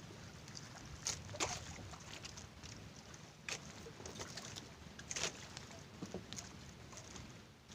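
Small fishing boat at sea: a steady low rumble with a few sharp, irregular knocks.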